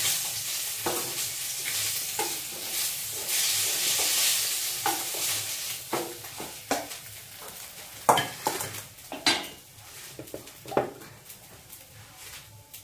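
Food sizzling in hot oil in a steel wok, stirred with a wooden spatula that scrapes and knocks against the pan. The sizzle fades over the second half while the spatula knocks come sharper and more often.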